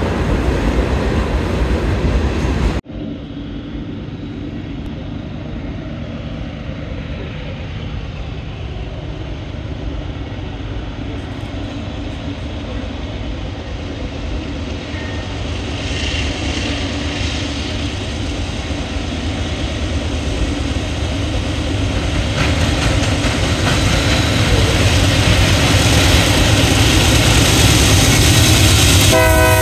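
Freight cars rolling past, cut off abruptly about three seconds in. Then a Union Pacific diesel locomotive approaching at the head of a train, its rumble growing steadily louder, with its horn starting right at the end.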